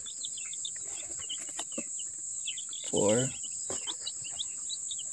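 Rhode Island Red and Barred Plymouth Rock chicks peeping in a stream of short, high chirps, over a steady high buzz of crickets. A brief low voice sounds about three seconds in.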